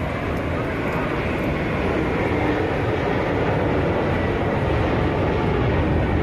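Steady rushing noise of fast-flowing floodwater, growing slightly louder over the seconds.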